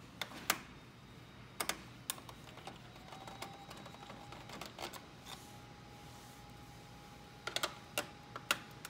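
Irregular sharp clicks and taps of a 5.5 mm nut driver and small screws against the metal frame and plastic housing of a Xerox toner dispenser assembly as its screws are taken out. They come in small clusters near the start and again near the end.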